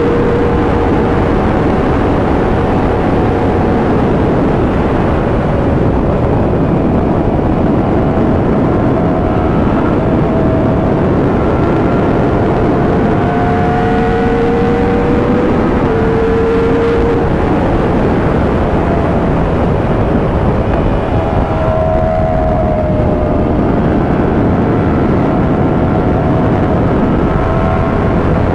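Motorcycle riding at highway speed, heavy wind rush over the microphone with the engine note underneath, climbing slowly and dropping back a few times as it accelerates and shifts gears.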